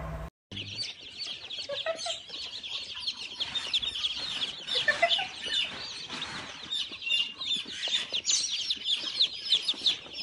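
A crate full of yellow chicks peeping: dozens of short, high cheeps overlapping in a constant chorus, starting about half a second in after a brief silence.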